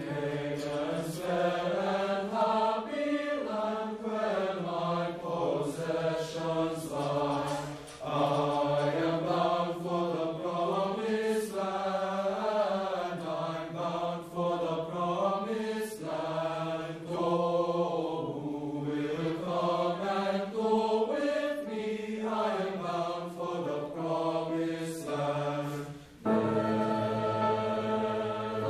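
Teenage boys' choir singing a phrase of sustained, moving notes, breaking off briefly near the end before starting a new held chord.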